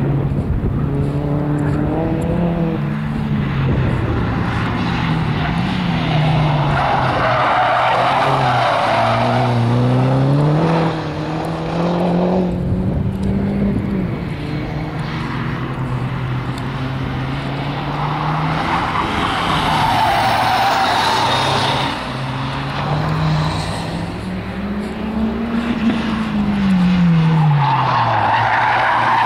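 A car engine revving up and easing off again and again as the car is driven hard, with the tyres skidding through the corners three times: about seven seconds in, about twenty seconds in, and at the very end.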